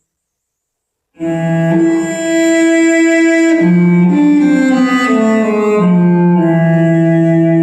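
Instrumental music of long held, low bowed-string notes played back through Technics SB-6000A loudspeakers. It starts about a second in after a brief silence, with a falling run of notes midway.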